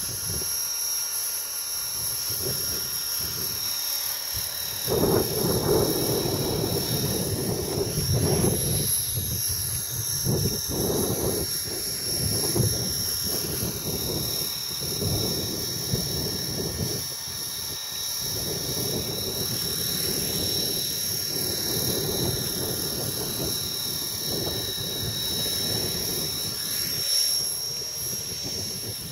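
Align T-Rex 450 electric RC helicopter hovering, with a steady high-pitched whine from its brushless motor and rotor head. From about five seconds in, gusts of strong wind buffet the microphone in irregular rumbling surges.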